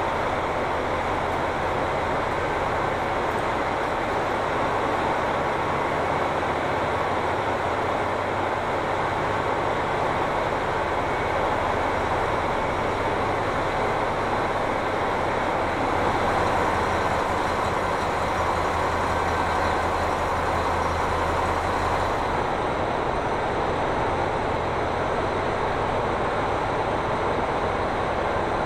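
KiHa 261 series diesel express railcar standing at the platform with its engines idling: a steady low hum under an even wash of station noise. The higher hiss thins about three-quarters of the way through.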